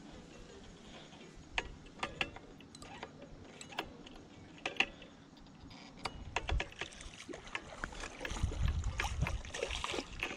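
Water splashing as a hooked common carp thrashes at the surface close to the bank and is drawn into a landing net, louder near the end. Scattered sharp clicks and knocks from the rod and reel being handled sound throughout.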